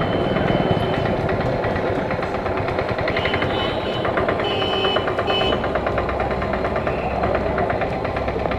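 Motorcycle engine running while the bike rides along the road, a rapid, even putter of firing pulses with road noise.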